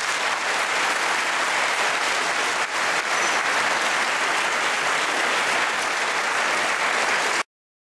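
A large crowd applauding steadily, cut off abruptly near the end.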